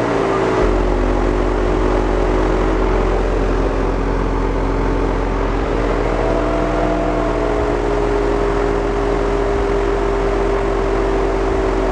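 Car audio system with three JL Audio W3 subwoofers and a JBL GT5 subwoofer playing a deep, steady bass note at full output for a sound-pressure-level measurement. The note buzzes with strong overtones.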